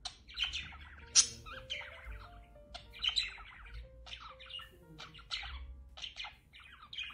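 Budgerigars chattering and warbling in a continuous run of quick chirps, with one sharp, loud note about a second in. Faint music plays underneath.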